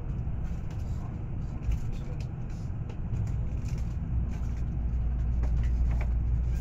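Steady low rumble of a Tokaido Shinkansen train running, heard from inside the passenger car, growing a little louder in the second half.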